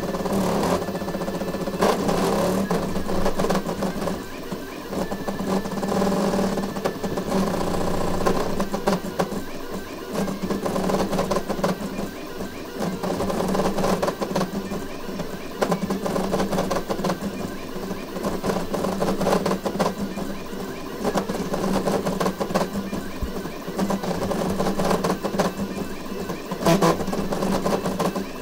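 Voron 3D printer speed-printing at 350 mm/s: its LDO stepper motors whine and buzz in fast-changing pitches as the toolhead darts back and forth, over a steady hum, with scattered sharp clicks.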